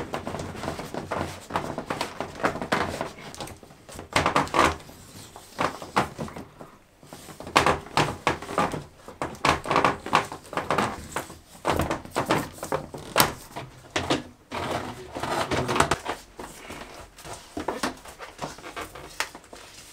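Ribbed plastic dust-extraction hose rubbing and scraping as it is twisted and pushed over a plastic pipe fitting, in irregular short bursts.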